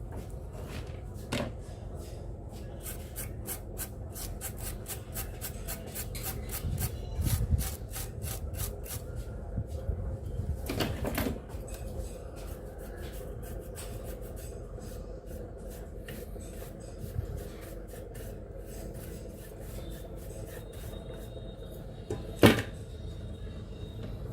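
Bench work on a TV circuit board: a run of small rapid clicks and scraping, a knock about eleven seconds in and a sharp loud click near the end.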